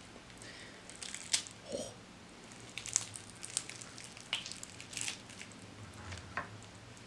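Crispy fried chicken being torn apart by hand: the breaded crust crackles and crunches in a scattered string of sharp crackles, with soft squishes from the meat.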